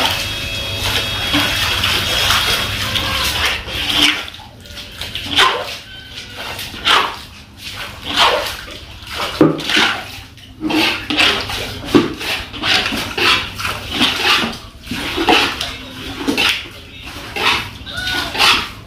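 Floodwater being scooped off a concrete floor with a plastic scoop and tipped into a plastic bucket: repeated short splashes and scrapes, about one a second, after a steady wash of noise in the first few seconds.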